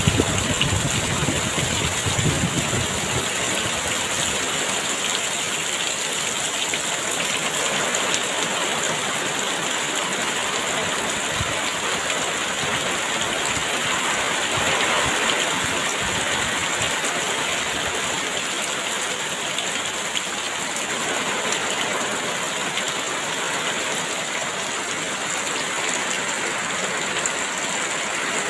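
Heavy rain falling steadily. A low rumble of wind gusts runs under it for the first couple of seconds, and a thin, steady high-pitched hiss sits above the rain throughout.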